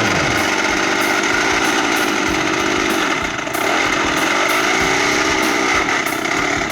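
Ural two-stroke chainsaw running at high revs as a makeshift starter for a T-25 tractor's diesel engine, with a rapid machine rhythm throughout. The level dips briefly about three seconds in.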